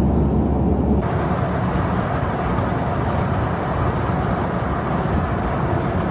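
Steady road noise from a vehicle driving: a low hum and tyre rumble that about a second in gives way to a brighter, hissier rush.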